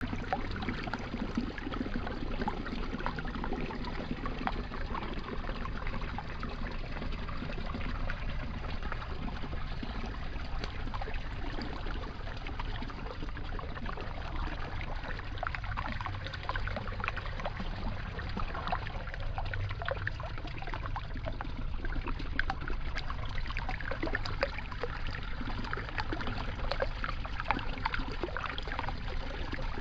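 Shallow water trickling and splashing, with many small irregular splashes.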